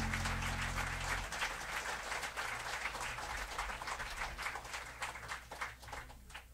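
A jazz trio's last chord rings out and dies away about a second in, then a live audience applauds, the clapping fading out toward the end.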